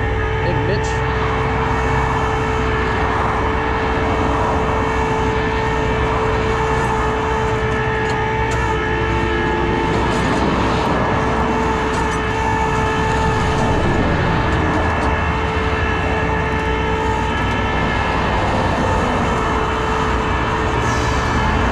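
Flatbed tow truck's engine running steadily under load, with a constant whine over the rumble, while a broken-down box truck is pulled onto the bed.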